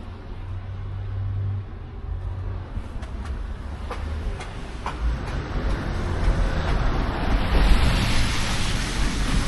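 Road traffic: a car passing by, its low engine rumble joined by tyre hiss that swells to a peak near the end.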